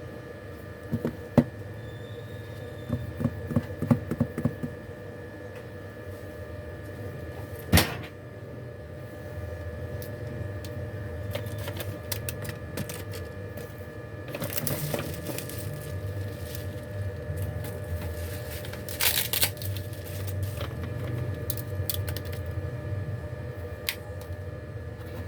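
Small sharp clicks and taps from tools and parts being handled on a work surface, with one louder click about eight seconds in and two brief scraping rustles later on, over a steady electrical hum.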